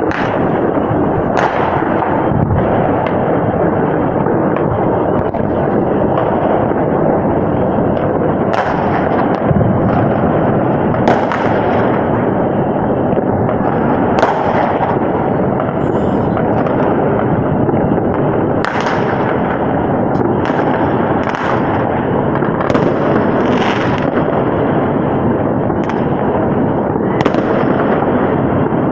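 Many fireworks going off at once: a continuous crackling rumble of bursts, with sharper single bangs standing out every second or two.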